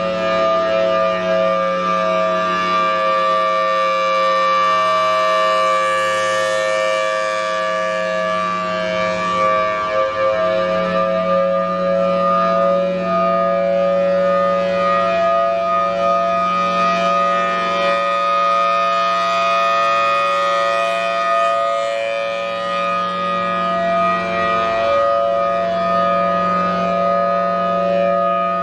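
Outdoor warning siren sounding a steady signal, two tones held together at nearly constant pitch.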